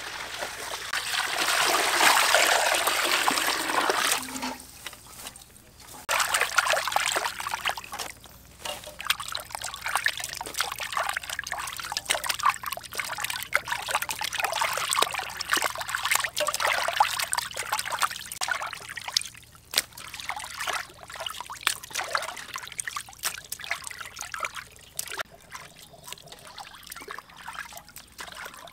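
Water pouring from a metal watering can into a stainless steel basin for about four seconds, then hands sloshing and rubbing raw chicken wings in the water, with irregular splashes that grow fainter near the end.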